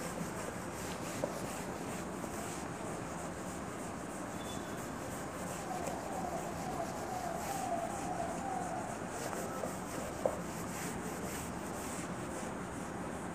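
A cloth duster rubbing back and forth across a whiteboard, wiping off marker writing. There is a faint squeak for a few seconds in the middle and a light knock twice.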